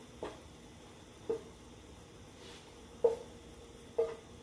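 Four light clinks of kitchenware, irregularly spaced about a second apart, each with a short ring; the one about three seconds in is loudest. Under them is the faint steady hiss of a lit gas burner.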